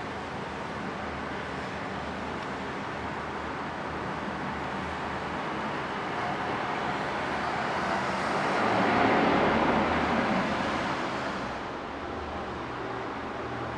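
Airliner passing on its landing approach: a rushing engine noise that swells to a peak about nine seconds in and then fades, over a steady background rush of wind.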